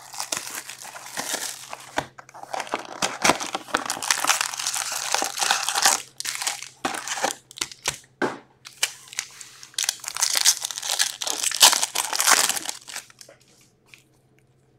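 Plastic shrink-wrap and foil trading-card pack wrappers crinkling and tearing as a sealed hockey card box is unwrapped and its packs ripped open, in a run of irregular crackles that stops about two seconds before the end.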